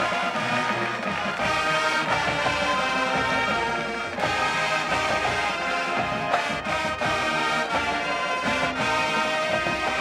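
High school marching band playing, with the brass prominent.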